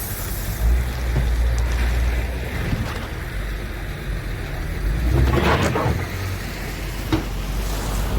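Caterpillar 277B tracked skid steer's diesel engine running steadily as it spreads gravel, with a louder rushing scrape about five seconds in and a sharp click near the end.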